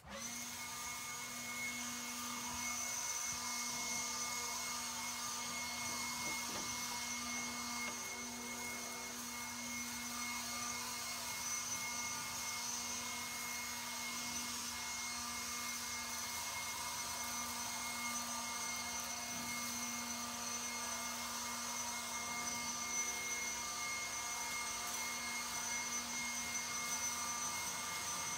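Handheld leaf blower switching on and running steadily, a continuous whine of its motor and fan with airflow rushing as it blows leaves off a garden bed.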